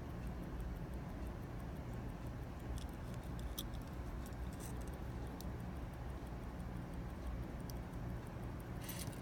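Faint, irregular small clicks and light metallic rattles of a pocket watch case and chain being handled, over a steady low hum.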